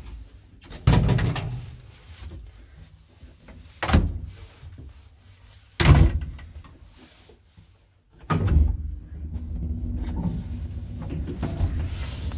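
Doors of a 1960s ZUD passenger lift shut with three sharp bangs. After a short pause the two-speed lift motor starts and the car travels with a steady low hum.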